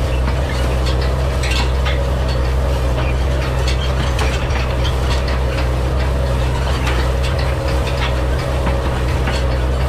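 New Idea side-delivery bar rake working hay behind a Farmall 806 diesel tractor: the reel's tine bars clatter and click irregularly over the tractor's steady diesel drone.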